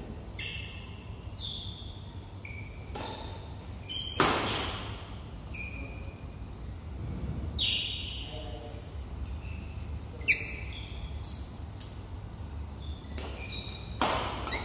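Badminton rally: rackets striking the shuttlecock in sharp cracks every second or two, mixed with brief high squeaks, echoing in a large hall.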